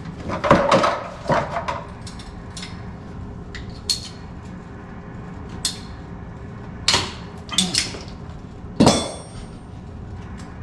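Irregular knocks and clatter of hard objects being handled. The louder clanks come about half a second in and around seven seconds in, and a ringing metallic clank comes near nine seconds.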